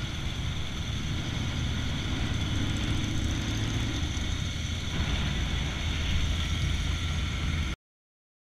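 Motorcycle engine running steadily at low speed, with wind and road noise. The sound cuts off abruptly near the end.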